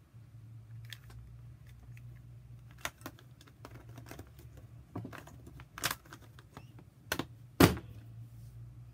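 Plastic Dino Cube puzzle being turned by hand: irregular clicks of its corner pieces snapping round, ending with a louder knock near the end as the cube is set down on the table.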